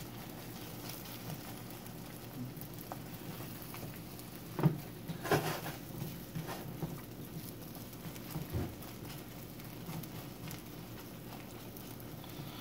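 Beaten egg with diced ham and turkey frying in butter in a nonstick skillet, a soft steady sizzle and crackle. A few light knocks of a silicone spatula against the pan come around five to nine seconds in.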